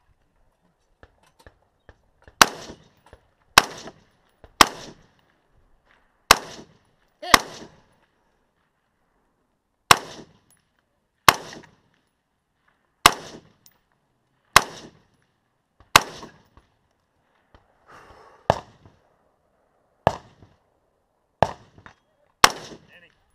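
A scoped rifle being fired, about fourteen single aimed shots spaced one to two and a half seconds apart, each with a short echo trailing off.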